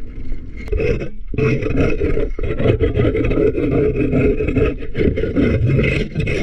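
Scraper rasping barnacles off a fishing boat's hull: continuous rough scraping with a short break about a second in.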